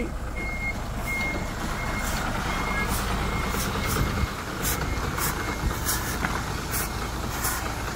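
Reversing beeper of a UNIC crane truck beeping in short repeated tones over its diesel engine running low as the truck backs up slowly. The beeps fade after about three seconds, and a run of short hisses follows, about two a second.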